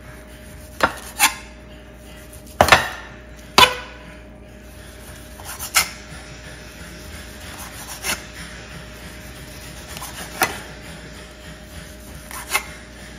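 Food-preparation knocks, a hard utensil striking a board or dish: about nine sharp single strikes at uneven intervals, one to two seconds apart, the loudest a close pair a little under three seconds in.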